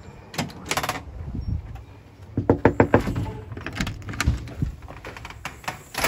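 Storm door's metal lever handle and latch clicking open, then a series of knocks and clatter as the door is pulled open and shut behind someone coming in.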